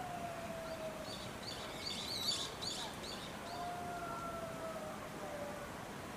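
Outdoor ambience with a small bird chirping a quick run of short, high notes in the first half, the loudest of them about two seconds in. Faint long whistle-like tones, each slightly falling in pitch, come and go in the background.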